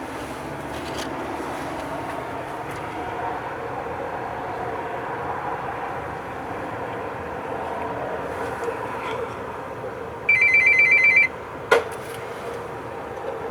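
Steady street background noise. About ten seconds in, the payphone's electronic ringer sounds one trilling ring lasting about a second, followed by a single sharp click. The ring is an incoming call on a payphone that otherwise has no dial tone.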